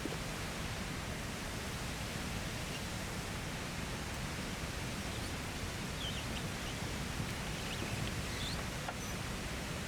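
Steady rushing of a waterfall, an even noise with no change, with a few faint high chirps past the middle.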